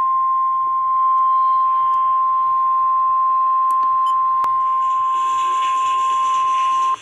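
NOAA Weather Radio 1050 Hz warning alert tone: a single loud, steady, high-pitched beep that cuts off suddenly near the end, the signal that a warning, here a severe thunderstorm warning, is about to be read. Faint radio hiss comes in under it in the last couple of seconds.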